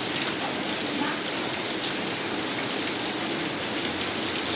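Steady heavy rain falling on surfaces, a constant hiss with scattered individual drop splashes.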